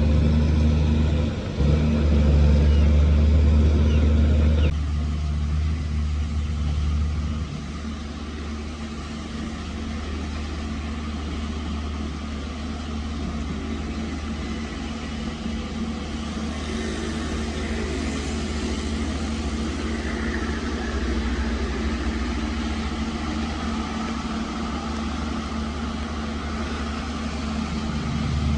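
Heavy diesel engine of earthmoving machinery running. It is loud for the first few seconds, drops suddenly about five seconds in and again at about seven and a half, then runs steadily at a lower level.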